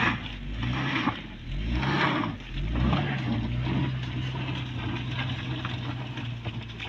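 Car engine revving in repeated surges about once a second as the car, stuck in snow, is pushed and its wheels spin in the slush, then settling into a steady drone about three seconds in.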